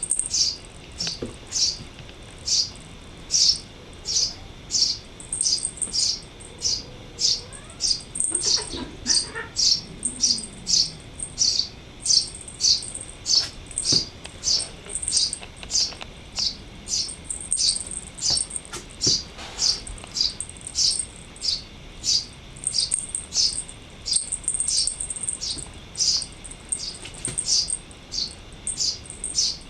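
A songbird calling over and over: a short, high, falling chirp about twice a second, with a thin, very high trill in between now and then.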